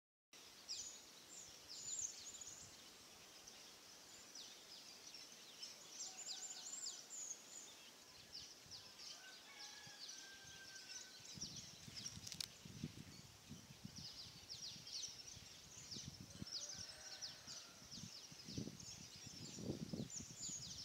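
Quiet field ambience of rapid, high-pitched wildlife chirping throughout, with a few faint whistled notes. From about halfway, low rustling and light thumps close by join in.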